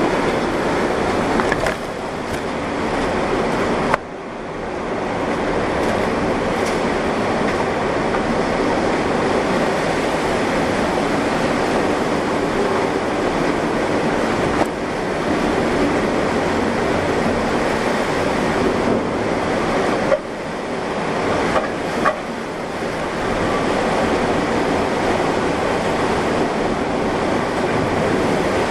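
Tornado winds rushing steadily. A few sudden knocks are spread through, each followed by a brief dip in the level.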